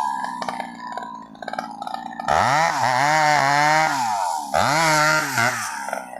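Chainsaw engine idling with a fast ticking for about two seconds, then revved up to high speed twice, each burst lasting about a second or two before dropping back.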